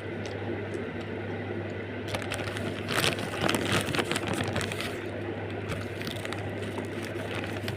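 Crackling and rustling: a dense run of sharp clicks from about two seconds in to about five seconds in, over a steady low electrical hum.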